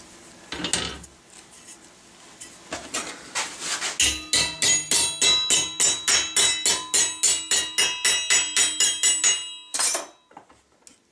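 Hammer striking a thin sheet-metal ramrod thimble blank clamped in a bench vise over a steel mandrel, bending it: a few separate blows, then a fast, even run of ringing metallic blows, about four or five a second for some five seconds, and one last blow.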